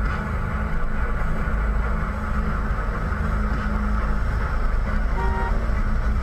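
Steady low rumble of a car's engine and road noise as picked up by a dashcam inside a moving car.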